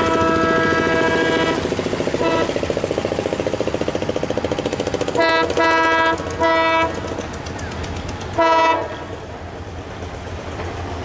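WDM3A diesel-electric locomotive sounding its multi-tone air horn as it approaches at speed. A long blast ends about a second and a half in, followed by four short blasts, with the locomotive's low rumble underneath.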